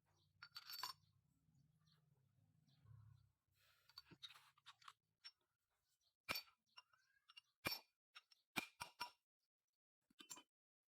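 Light metallic clinks and taps from tools and engine parts being handled during a small-engine repair, about half a dozen sharp clicks in the second half. A faint low hum runs through the first few seconds.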